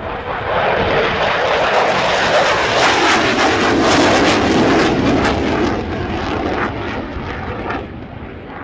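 Military jet aircraft flying past, its engine noise swelling up, holding loud through the middle, then fading away, with a ragged crackle at its loudest.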